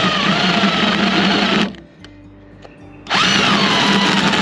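Corded electric drill driving a hole saw into the deck, cutting a hole over a pilot hole. It runs in two goes with a pause of about a second and a half between. Each run starts with a rising whine that settles lower as the saw bites.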